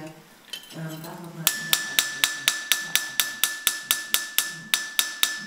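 Light hammer blows on a knife blade held on a small anvil stake, starting about a second and a half in and evenly paced at about four a second, each with a high metallic ring that carries between the blows: the blade being straightened by hammering.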